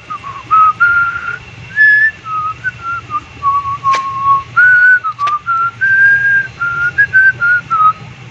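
A person whistling a tune, one clear note at a time, with short held notes stepping up and down. There is a sharp click about four seconds in and another about a second later.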